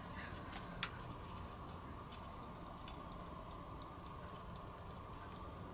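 Faint, scattered light clicks of small panel parts and screws being handled during reassembly of a cassette deck's front panel, one sharper click about a second in, over a steady low electrical hum.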